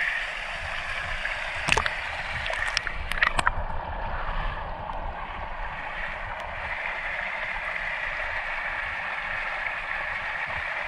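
Creek water flowing and gurgling steadily, with a few sharp knocks around two to three seconds in.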